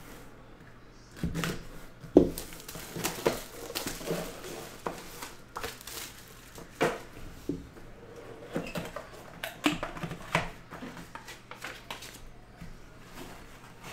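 Plastic shrink wrap being torn and crinkled off a trading-card box, then the cardboard box being opened and handled, in irregular crinkles, taps and light knocks.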